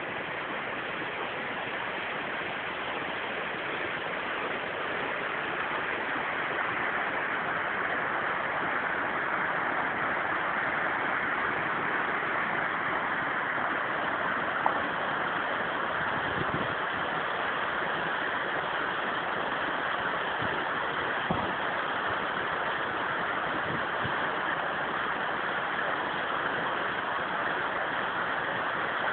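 Lake outflow stream cascading down a rocky mountain waterfall: a steady rush of water that grows a little louder a few seconds in. A single small click about halfway through.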